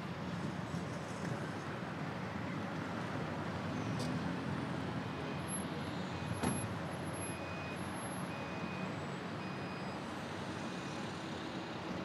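City street traffic noise with passing vehicles. Through the second half comes a steady series of short high beeps, a little under one a second, and about six and a half seconds in there is a single sharp knock.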